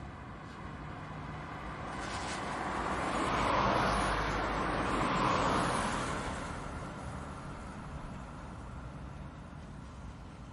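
A car passing by. Its road noise builds, is loudest about four to six seconds in, then fades away.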